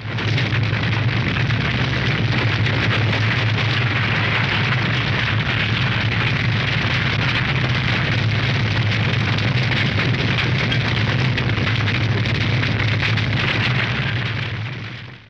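Old cartoon library fire sound effect: flames burning steadily with a fine crackle and a low rumble underneath, fading out near the end.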